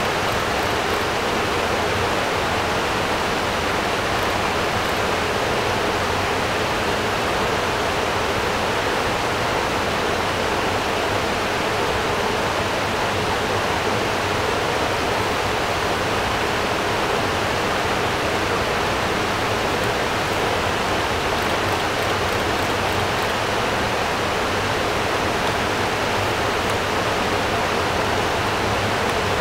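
Shallow river water rushing steadily over a sloping stone ledge, a continuous even rush.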